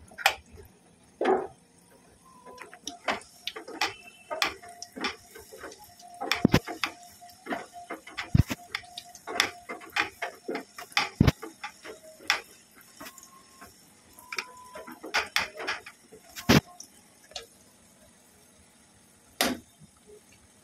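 Irregular clicks and knocks from a perforated metal sev sieve (sev jhara) shifting and tapping against the rim of a steel kadhai as besan dough is rubbed through it by hand, with a few louder knocks. Under them is a faint steady hiss of the dough strands frying in hot oil.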